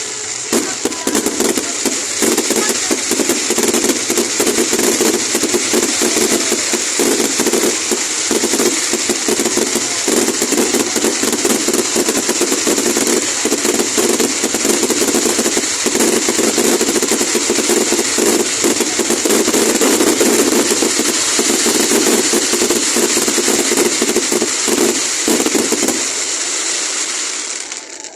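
Fireworks display: a dense, continuous barrage of rapid bangs and crackling that dies away near the end.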